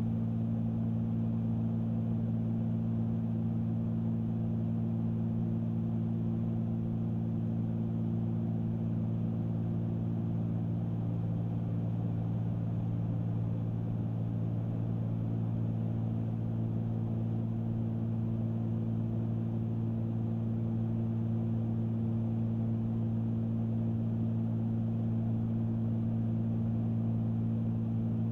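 Cessna 310Q twin piston engines and propellers droning steadily at cruise power, heard inside the cabin as a constant low hum with several fixed tones.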